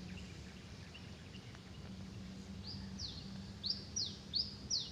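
A bird calling a series of sharp, high chirps that each sweep downward, about two a second, starting a little past halfway, over a faint steady low hum.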